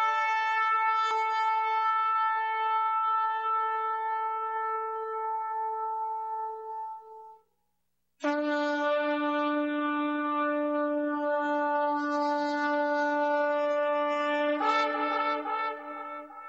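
Shofar blown in two long held blasts. The first fades out about seven seconds in. After a short gap a second, lower blast starts, and its tone turns brighter and unsteady near the end before it fades.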